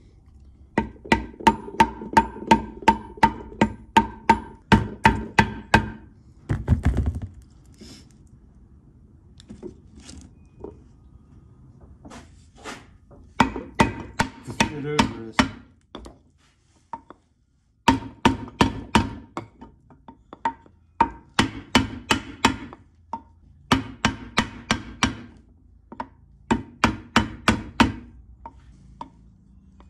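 Hammer blows on a wooden block, driving the ball bearing of a 1953 Dodge three-speed transmission's input shaft into its cast-iron case. The blows come in runs of about three a second with short pauses, and each one rings briefly.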